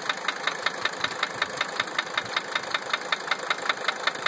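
1980 Mercedes-Benz 300 SD's five-cylinder turbodiesel idling with a sharp, regular tap about six times a second. Replacing the number 3 injector has not cured the tap.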